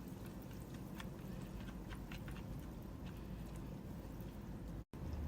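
Wire whisk stirring a thick, creamy mayo-based dip in a bowl: soft, wet squishing with light, irregular clicks of the wires against the bowl. The sound cuts out for an instant near the end.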